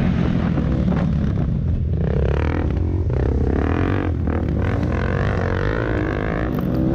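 Dirt bike engine running hard, its pitch rising and falling repeatedly as the rider works the throttle.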